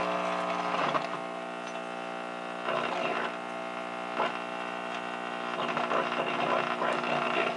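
Zenith Trans-Oceanic H-500 tube radio playing through its speaker with a steady power-supply hum, a faint station underneath. The hum is the sign of aging electrolytic filter capacitors that need replacing.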